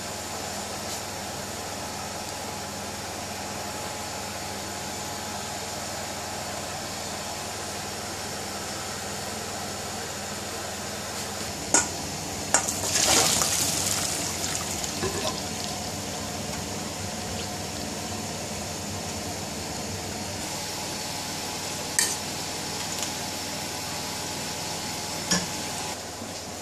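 Sweetcorn and its hot cooking water poured from a pan into a metal colander: a brief loud rush of splashing water about halfway through, with a few sharp metal knocks before it and later, over a steady background hum.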